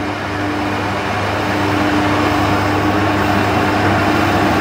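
Trotec TTK 75 E dehumidifier running just after being switched on: its fan blowing with a steady low hum that builds over the first two seconds and then holds. The owner takes the hum for the compressor actually starting, on a unit bought because its compressor would not start.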